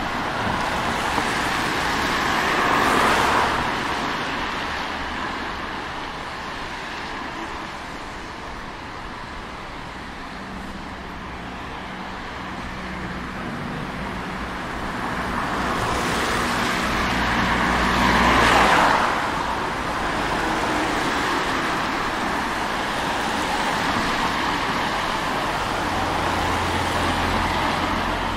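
Road traffic on a wet street: cars pass with a hiss of tyres on wet asphalt. The two loudest passes come about 3 seconds in and about 18 seconds in, each swelling and fading over a few seconds.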